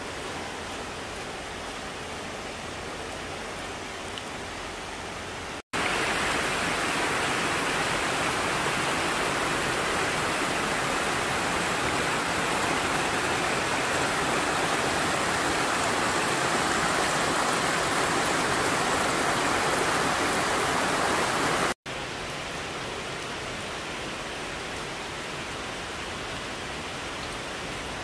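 Steady rush of water from a small stream cascading over rocks. A louder, closer stretch begins abruptly about six seconds in and stops abruptly some sixteen seconds later; on either side the same rush is softer.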